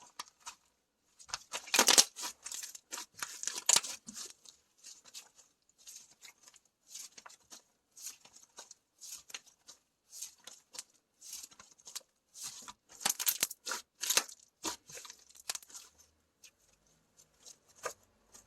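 Hands squishing and stretching slime, giving a long run of sticky crackles and tearing sounds, thickest about a second or two in and again near the two-thirds mark.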